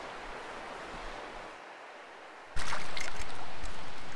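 Steady rush of river current, then about two and a half seconds in a sudden, much louder run of splashing as a hooked creek chub thrashes at the surface close by.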